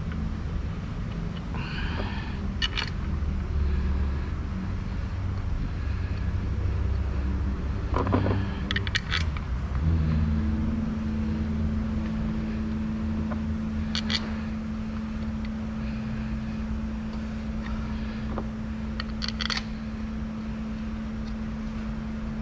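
A few light metal clinks from hand work on engine parts, over a steady low mechanical rumble; a steady hum joins about halfway through.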